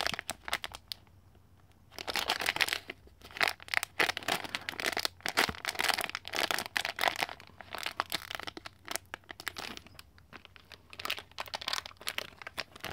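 Foil blind-bag wrapper crinkling as hands squeeze and handle it, in irregular crackly spells with a short pause about a second in.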